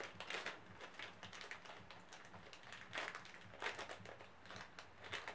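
Small plastic accessory bag being handled and opened, a faint run of crinkles and clicks, with a few louder clusters.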